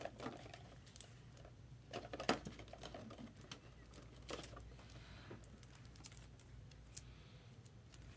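Faint, scattered light clicks and taps at an uneven pace, a few louder ones about two seconds in, over a low steady hum.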